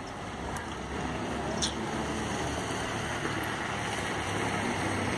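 Wind buffeting a camera microphone: a steady rushing noise with an uneven low rumble.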